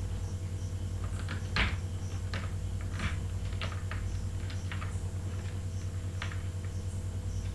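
Steady low hum with a dozen or so faint, irregular clicks of a computer mouse, one louder about a second and a half in.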